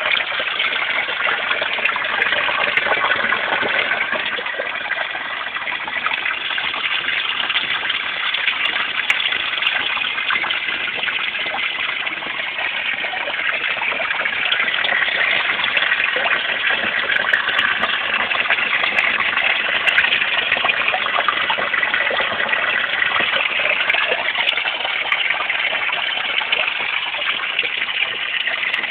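Water pouring steadily into a garden fish pond: a continuous rushing splash that keeps up without a break.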